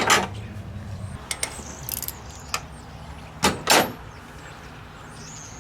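Metal hand tools clinking and knocking while a wrench is swapped and fitted to an engine's belt tensioner: a handful of separate clicks, the loudest two about three and a half seconds in, over a steady low hum.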